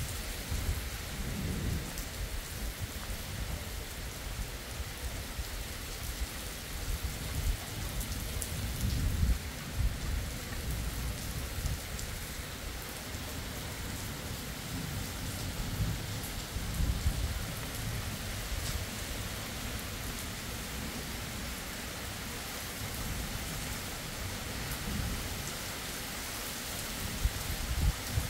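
Steady rain falling on a road and vegetation during a thunderstorm, with low rumbles of thunder swelling and fading a few times.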